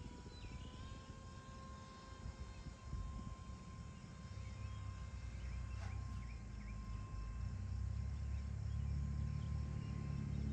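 Electric motor and propeller of a small Nano Drak RC airplane in flight, a thin steady whine that steps up slightly in pitch about a second in. Wind rumbles on the microphone, growing louder in the last few seconds, and a bird chirps briefly near the start and again about six seconds in.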